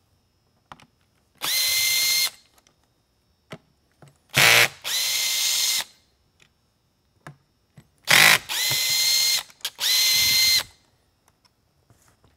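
Makita cordless drill backing screws out of a light bar's plastic base in about five short runs of a second or less, each a steady whine. Some runs open with a brief, louder, rougher burst.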